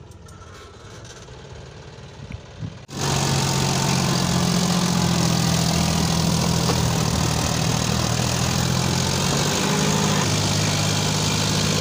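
John Deere 5042D tractor's three-cylinder diesel engine running steadily while driving a rotavator through dry soil. It is faint at first, then abruptly much louder and closer about three seconds in, with a steady low hum.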